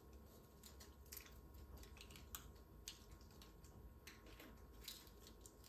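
Near silence with faint, scattered clicks and crackles from hands handling communion bread.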